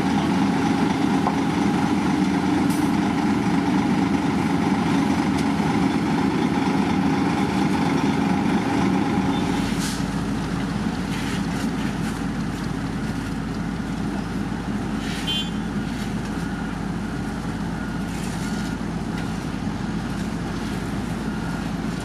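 Heavy road-construction machinery engines running steadily at a paving site; about nine seconds in the engine note changes and the sound drops a little. Faint repeated beeps sound in the second half, with a few sharp clicks.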